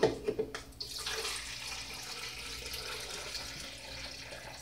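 Lemonade being poured from a plastic pitcher into another container: a steady stream of liquid splashing in, starting about a second in after a few knocks of handling.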